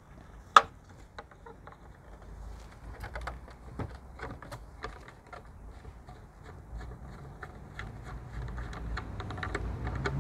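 Small irregular clicks and ticks of a screwdriver turning out small screws from the plastic motor unit inside a Mitsubishi 3000GT door mirror housing, with one sharper click about half a second in.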